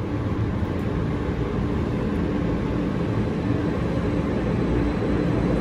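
Steady low rumble with a faint hum in an underground light-rail station, with a train standing at the platform.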